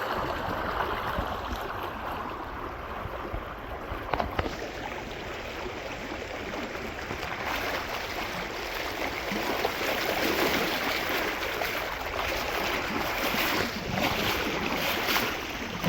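River water rushing steadily, with a few small knocks about four seconds in.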